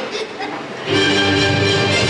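Music over a loudspeaker system starts suddenly about a second in, with steady held notes and a strong bass line, after a quieter first second.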